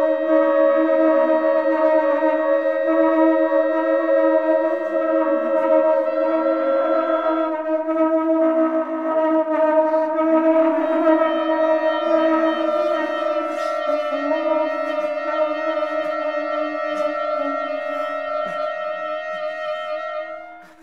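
Contemporary wind music of clarinets, English horn, horn and conch-shell trumpets with electronic processing, holding several long overlapping tones. One of the held notes drops out about seven seconds in, and the sound eases off near the end.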